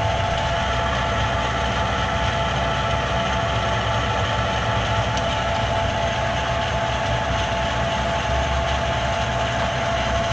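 Jet BDB-1340A metal lathe running without cutting, its spindle and gears turning: a steady mechanical hum with a constant whine.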